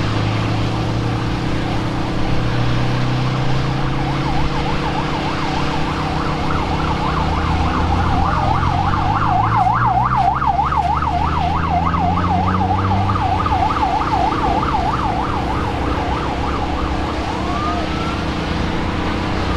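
Emergency vehicle siren in a fast yelp, warbling up and down about three times a second, starting a few seconds in and ending with a short rising wail near the end. Underneath, a vehicle engine runs, its pitch climbing partway through.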